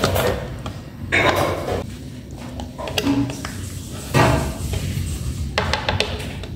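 A spatula scraping and knocking cream cheese out of a plastic cup into a plastic blender jar, in a few short scraping bursts, about a second in, around four seconds in and near the end.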